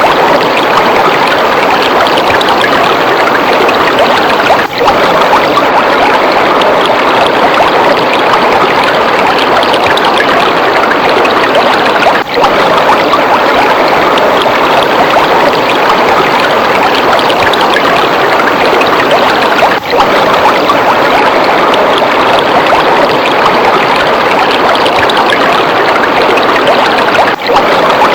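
Waterfall: a steady, dense rush of falling water with no let-up, dipping briefly about every seven and a half seconds.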